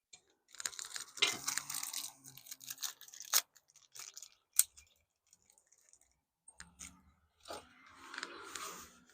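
Handling noise as a doorbell mounting plate and its screws are fitted against the wall: irregular clicks and rustling scrapes in two spells, with a near pause of about two seconds in the middle.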